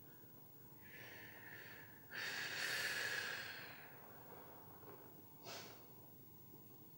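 A person breathing audibly: a drawn breath, then a longer, louder exhale like a sigh that fades away, and a short sniff about five and a half seconds in.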